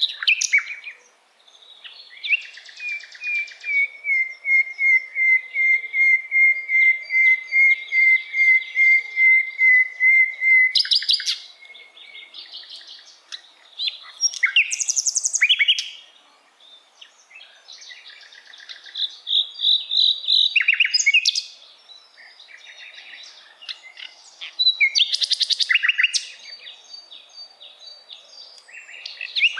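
Sikatan londo songbird singing. A long run of about twenty repeated whistled notes at one steady pitch lasts some eight seconds, then comes a series of short, varied phrases of sharp chirps and trills with pauses between them.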